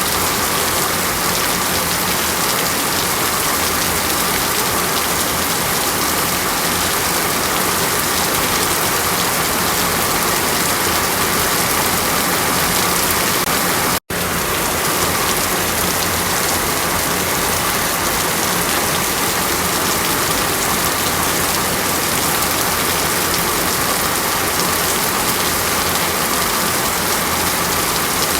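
Water rushing or pouring steadily as a dense, even hiss, like heavy rain. It cuts out for an instant about halfway through, then resumes unchanged.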